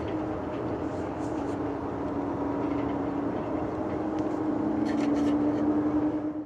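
Jet airliner engines running with a steady hum over a rushing noise, growing gradually louder, then cut off suddenly at the end.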